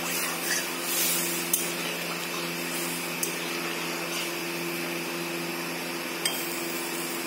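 Metal spoon stirring radish dal in a metal kadai, clinking against the pan a few times, over a steady hum and hiss.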